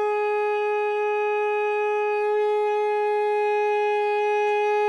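Alto saxophone holding one steady, even note with a clear tone: the controlled long tone on steady, gentle air that a beginner should aim for.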